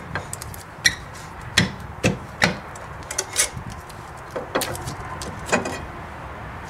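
2002 Mitsubishi Lancer's rear brake drum knocking and scraping against the hub and brake shoes as it is handled and pulled off during shoe adjustment: about seven sharp knocks at irregular intervals.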